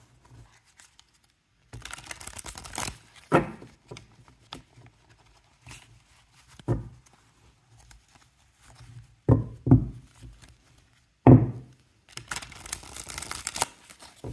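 A deck of tarot cards being shuffled by hand for the first time: two quick runs of rapid card flutter, one near the start and one near the end, with several dull knocks of the deck between them.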